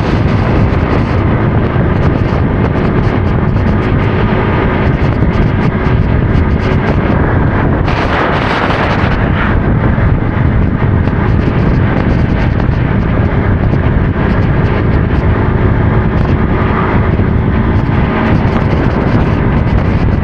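Motorcycle engine running under way with heavy wind noise on the microphone; a louder gust of noise rises briefly about eight seconds in.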